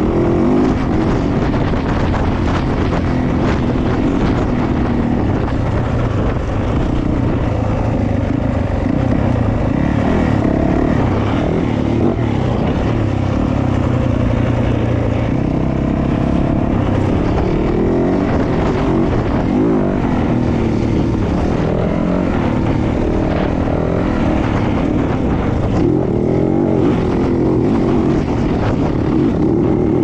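2020 Yamaha YZ450F dirt bike's single-cylinder four-stroke engine running under load while riding, its pitch rising and falling again and again with the throttle.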